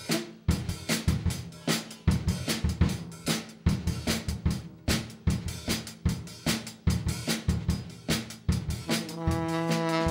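Drum solo on a drum kit: rapid snare and bass-drum hits with cymbal crashes. About nine seconds in, a saxophone comes back in with held notes over the drums.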